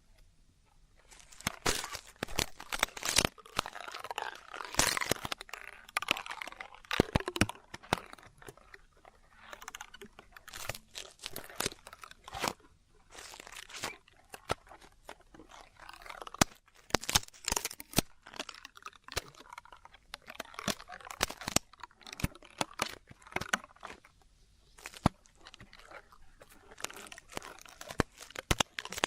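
Ear-cleaning ASMR: an ear pick scratching and crunching in irregular strokes, with sharp clicks and short pauses between bouts.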